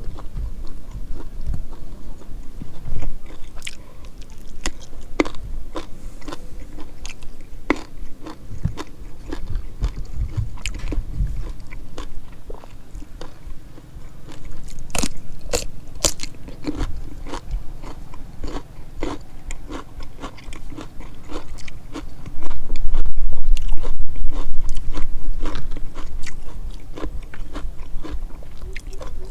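A person eating close to the microphone: chewing with many small crisp crunches and wet mouth clicks. About three-quarters of the way through there is a louder low rumble lasting a couple of seconds.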